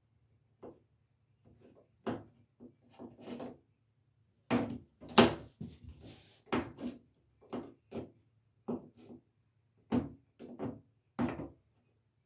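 Irregular knocks and clicks of plastic cable trunking and fittings being handled and pushed together, the loudest about five seconds in.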